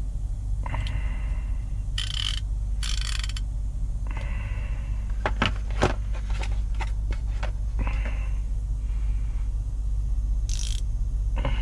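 Chrome ratchets being handled, with scraping and rustling, and a run of sharp clicks and clinks about five to seven seconds in. A steady low hum underneath.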